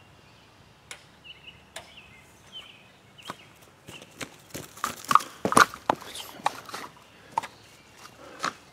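Irregular footsteps and knocks on dry ground, a scatter of sharp crunches that come thickest and loudest about five to six seconds in.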